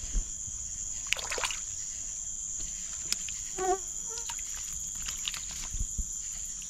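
Night chorus of crickets and other insects, a steady high-pitched trill, with a few small splashes and knocks in shallow swamp water and a brief vocal sound about halfway.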